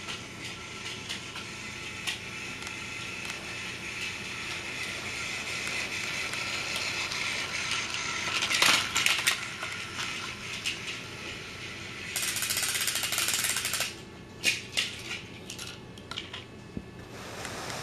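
Die-cast toy trains running on plastic Take-n-Play track: a steady whir with light clicks and rattles, a louder clatter about halfway through, a harsher rattle lasting a couple of seconds later on, then scattered clicks.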